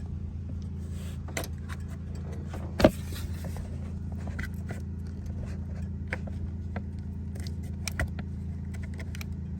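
Hard plastic clicks, knocks and rattles as the hose connectors and clips of an evaporative emissions purge valve line are handled and pushed into place, with one sharp loud click about three seconds in. A steady low hum runs underneath.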